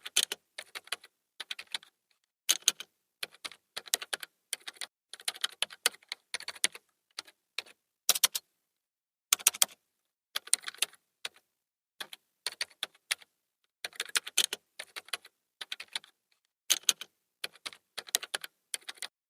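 Computer keyboard being typed on: quick runs of key clicks in short bursts, with brief pauses between bursts.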